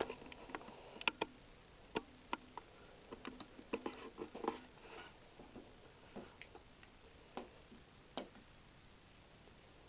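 Faint, irregular clicks and knocks in a small, quiet room, clustered in the first half and sparser after: small handling and movement noises as a recording session gets under way.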